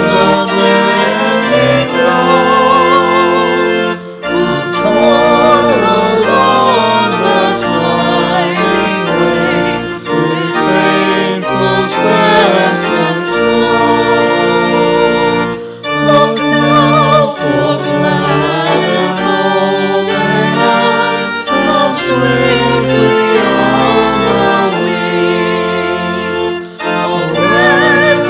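A congregational hymn sung with organ accompaniment: sustained organ chords under a singing voice with vibrato, with short breaks between phrases.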